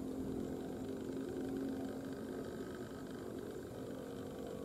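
Faint, steady low hum like an engine running, fading out about halfway through, over a quiet outdoor background.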